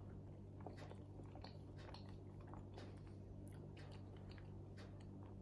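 Faint chewing of a mouthful of soft food with the mouth closed: small irregular mouth clicks over a steady low hum.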